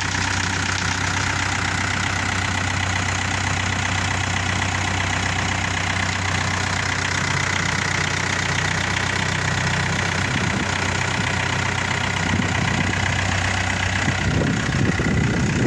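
Engine idling steadily. A rougher low rumble builds in the last few seconds.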